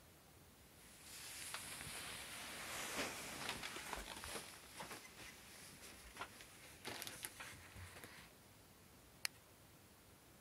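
Handling noise from a hand moving objects: a rustling, scraping hiss with scattered small clicks, starting about a second in and stopping after about eight seconds, then one sharp click about nine seconds in.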